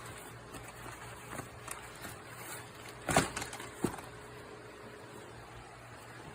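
Mini split indoor unit's fan running with a faint steady hum, with two short knocks about three seconds in. The fan is blowing but not cooling.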